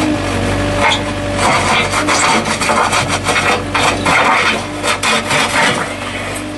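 Repeated irregular scraping strokes over the steady hum of a running engine.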